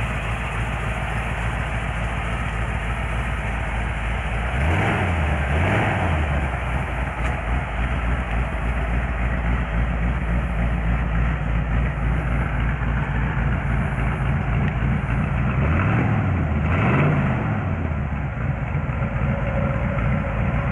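1947 Ford Super Deluxe's 239 cubic inch flathead V8, fitted with Offenhauser heads and a Holley four-barrel carburettor, idling steadily. The throttle is blipped twice in quick succession about five seconds in, and twice again near sixteen seconds, the revs rising and falling back to idle each time.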